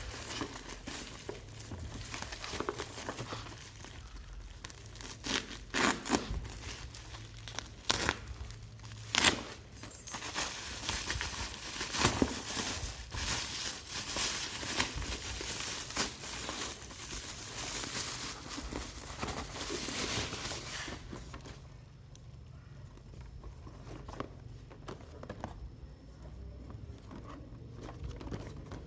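Packaging being unwrapped by hand: wrapping crinkling and tearing, with irregular sharp clicks and knocks of the box and contents being handled. The handling goes much quieter about two-thirds of the way through.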